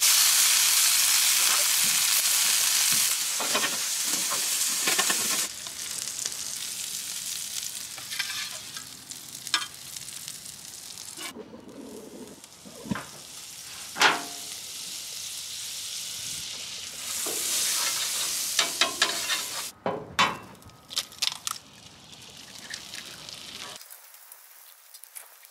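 Butter and food sizzling on the hot flat-top steel griddle of a Traeger Flatrock, with a few sharp utensil clicks and scrapes. The sizzle is loudest for the first few seconds, dies down, swells again about two-thirds through, and is faint near the end.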